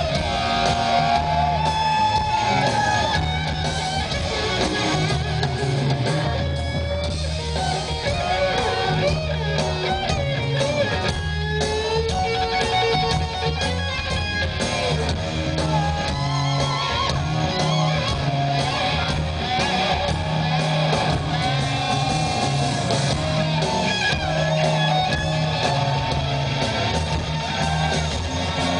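Live rock band playing an instrumental stretch: an electric guitar lead with bending notes over steady bass and drums, with no vocals.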